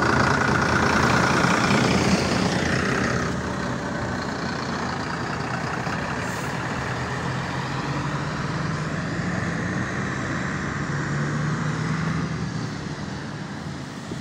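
MAZ-103 city bus heard from on board, its engine and road noise running. The noise is loudest for the first few seconds, then drops about three seconds in to a lower, steadier running sound.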